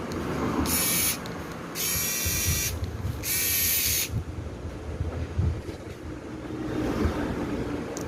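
Three short hissing bursts of pressurized spray, each well under a second, about a second apart, over low handling rumble.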